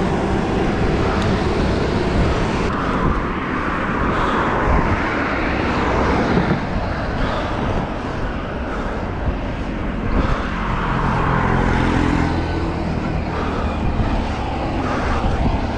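Steady wind and traffic noise heard from a road bike riding at speed, a dense rush with a deep rumble. A motor vehicle's engine hum rises over it about ten seconds in and fades after a few seconds.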